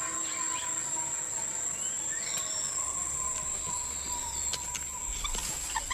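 Amazon rainforest ambience: a steady, high-pitched insect drone, with a few short, gliding bird whistles over it.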